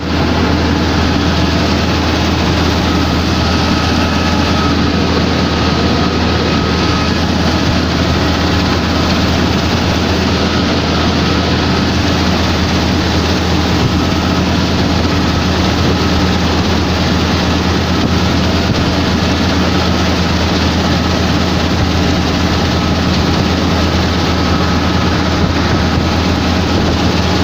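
World combine harvester running steadily while harvesting wheat: an even, unbroken machine drone from its engine and harvesting gear.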